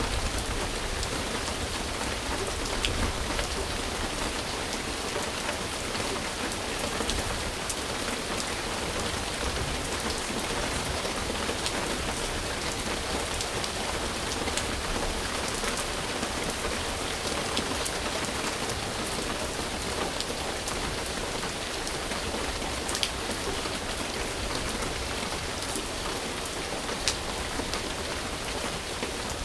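Steady rain falling on a surface, with scattered individual drops ticking.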